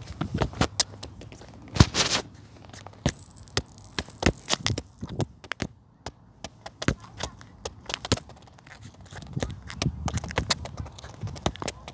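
Handling noise on a phone's microphone: irregular clicks, knocks and rubbing as the phone is gripped and carried along while walking.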